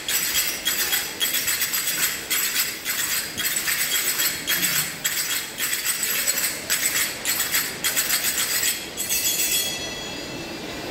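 Finger cymbals (zills) played by a group of belly dancers, a rapid, even rhythm of bright metallic clinks, several strikes a second. About nine seconds in the strikes stop and the cymbals ring on.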